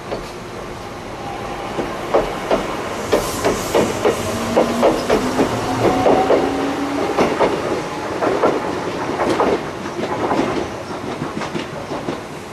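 Electric commuter train rolling slowly, its wheels clacking unevenly over rail joints. A steady whine sounds for a few seconds in the middle.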